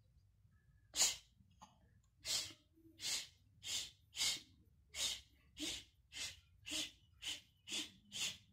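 A run of about a dozen short breathy huffs, evenly spaced at roughly two a second, starting about a second in.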